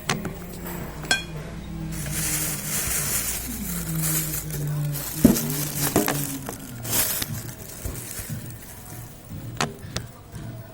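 Cutlery clinking against a bowl while noodles are eaten: several sharp clinks, with stretches of hissy eating noise in between.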